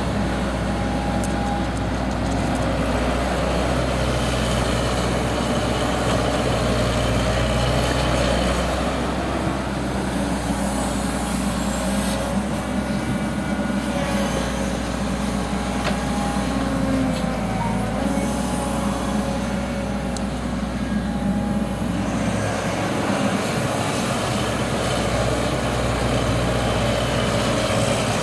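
Caterpillar 312C hydraulic excavator at work: its diesel engine runs steadily under load as the boom and bucket move. There are a few light knocks.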